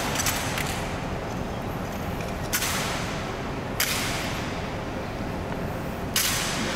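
Sharp cracks from the honor guards' rifle drill, rifles slapped and struck as they are swung and presented, each one echoing through the stone hall. There are four: one at the very start, then about two and a half, four and six seconds in, over a steady hiss of hall ambience.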